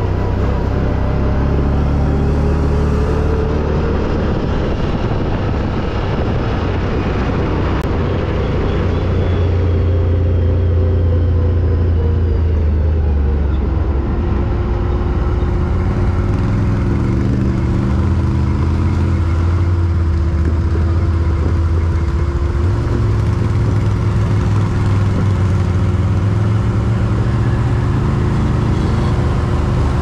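ATV engine running under way, its revs rising in the first few seconds, dropping around the middle, then holding fairly steady.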